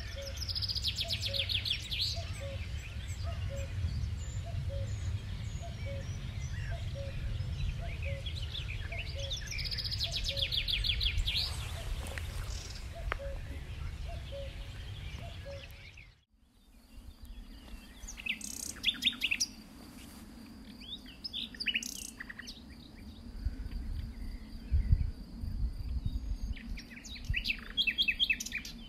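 Songbirds singing. A fast trilled song phrase comes twice, about nine seconds apart, over a low rumble. After an abrupt change about halfway through come scattered chirps and calls, with a steady high tone behind them.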